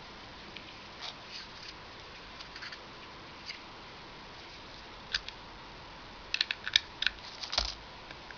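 Small plastic clicks and taps of a card reader being handled and plugged into a USB adapter, with a quick run of several clicks near the end.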